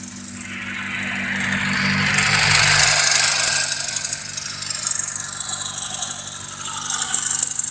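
VAZ-2101 (Zhiguli) four-cylinder engine running with a rattling knock. It is revved up about a second in, loudest around three seconds, then eases back. The cause of the knock is unknown to the owner.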